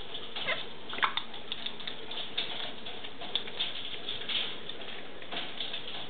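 African grey parrots moving about on wooden perches: scattered small clicks and scratches with a few brief squeaks, the sharpest about a second in, over a steady hiss.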